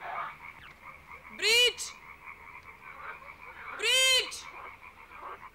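Frogs croaking in a steady night chorus, with two loud, short squealing calls that rise and fall in pitch, about two and a half seconds apart.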